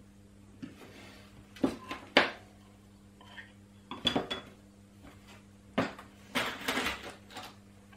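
A small metal tin of soldering flux and hand tools being handled on a workbench: a scatter of sharp clicks and clinks, with a short rustling clatter near the end.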